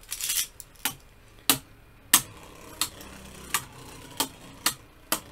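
Two spinning Beyblade tops clashing in a plastic stadium: a run of sharp plastic clacks, about eight of them, roughly two-thirds of a second apart, as the tops repeatedly knock into each other.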